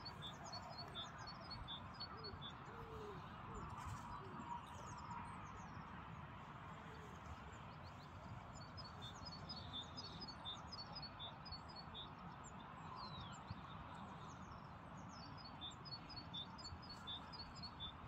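A small songbird singing bouts of short high notes, repeated quickly and alternating between two pitches, three times: at the start, for a few seconds in the middle, and again near the end. Under it runs a steady, faint outdoor background noise.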